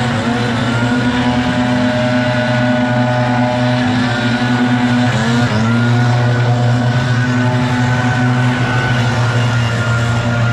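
Several gas-powered backpack leaf blowers running together, a steady engine drone made of several pitches that rise and fall as the operators work their throttles.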